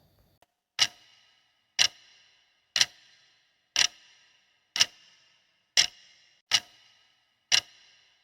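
Quiz countdown timer ticking once a second: eight sharp clock ticks, each with a brief metallic ring, marking the answer time.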